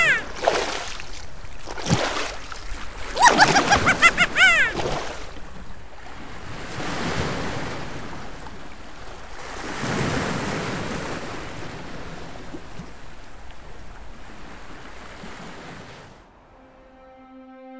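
Ocean surf washing on a sandy shore, swelling and easing back. Two bursts of high, quickly repeated calls come in the first five seconds. The surf fades out near the end as soft music begins.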